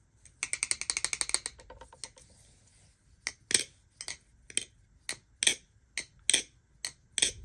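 G10-handled Marcolo Comet balisong being flipped: a quick rattle of clicks for about a second, then sharp clicks about twice a second as the handles swing open and shut.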